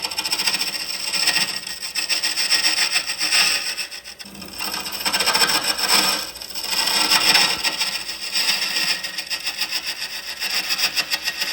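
A tool scraping against wood on a lathe, a continuous rasping that swells and fades every second or two, with a brief lull about four seconds in.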